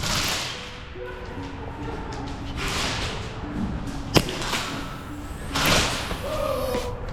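Background music with held notes, overlaid by three whooshing swells and a single sharp crack about four seconds in.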